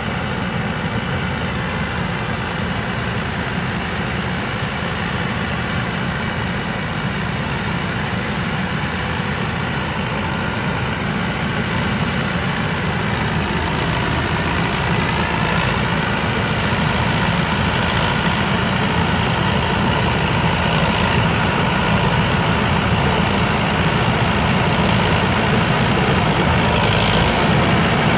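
Combine harvester running at work in wheat: its engine and threshing machinery make a continuous heavy drone that grows gradually louder over the second half.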